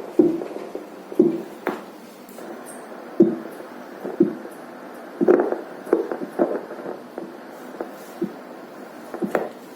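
Fetal Doppler's loudspeaker reproducing a fetal simulator's heartbeat set to 60 beats per minute: a short low pulse about once a second, with a few sharper clicks between the beats.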